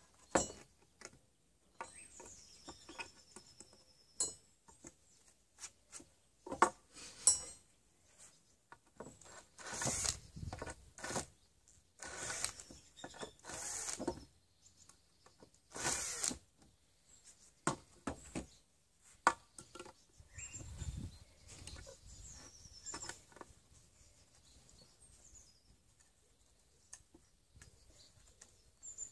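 Cordless drill-driver run in three short bursts of a second or two against a wooden beam, working old screws out of the reclaimed timber. Scattered clicks and knocks of hand tools on the wood come before and after the bursts.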